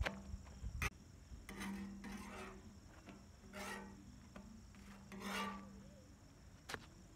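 Chapatis being slid and flipped by hand on a large griddle: a few short, faint rasping rubs, about one every second or two.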